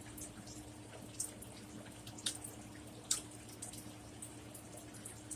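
Faint, close-up mouth sounds of someone chewing a cheese taco shell with avocado and salad: several short, sharp wet clicks and smacks, each about a second apart, over a steady low hum.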